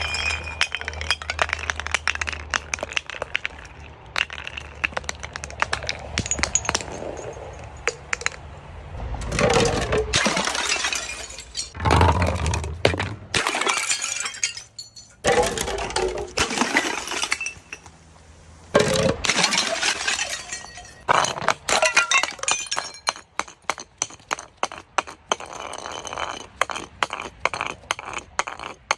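Glass bottles being crushed, cracking and breaking with many sharp cracks and clinking shards. There are heavier spells of crunching about ten, twelve, sixteen and nineteen seconds in, and quicker crackling near the end. A low steady hum runs under the first several seconds.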